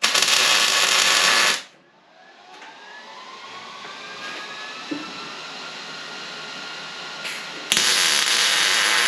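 MIG welder laying down two short welds on a steel floor brace: the arc crackles and hisses for about a second and a half at the start and again near the end. In between, a fainter whine slowly rises in pitch.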